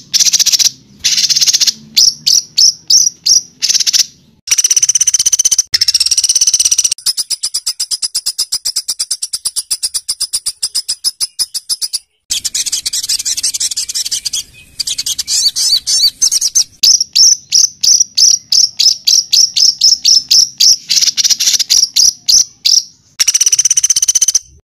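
Songbird singing in harsh, rapid-fire 'tembakan' phrases: runs of sharp, high repeated notes, long dense rattling trills through the middle, and brief silent breaks between phrases.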